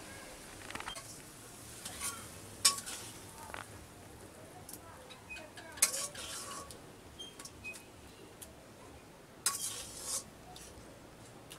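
A metal ladle stirring in an aluminium wok, with scattered clinks and scrapes against the pan and a few sharper knocks.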